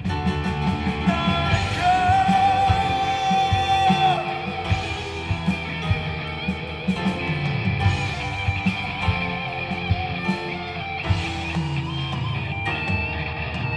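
Live rock band playing an instrumental passage: a held, wavering lead line over drums, bass and guitar.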